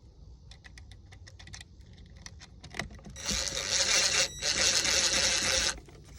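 Light clicks of small parts being handled, then a screw being driven into the remote control's housing: a steady noisy whir lasting about two and a half seconds, with a brief break a little past the middle.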